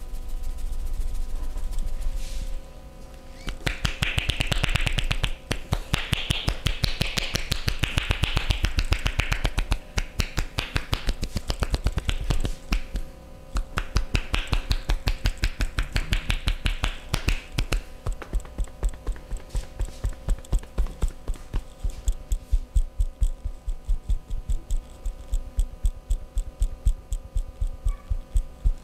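Hands striking the body in fast, even massage slaps, about three or four a second, with a rubbing hiss over them in a few stretches.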